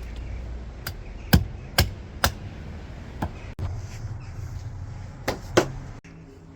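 Sharp knocks of a tool striking wood: four about half a second apart, then a few more after a pause, over a low rumble.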